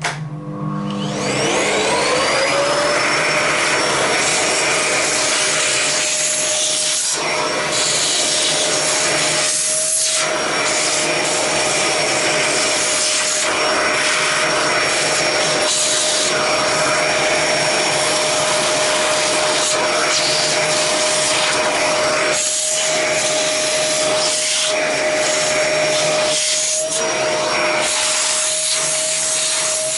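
Vacuum cleaner switched on, its motor whine rising to full speed in the first two seconds, then running steadily as it sucks the dust out of the underside of an upturned Roomba, with brief dips in the sound every few seconds.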